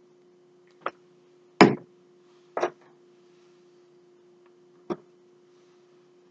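Four separate taps and knocks on a tabletop as craft materials are handled, the second one the loudest, over a steady low hum.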